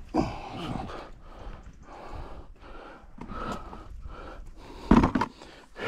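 A man breathing hard and panting, out of breath from climbing a steep rocky slope, with a loud thump about five seconds in.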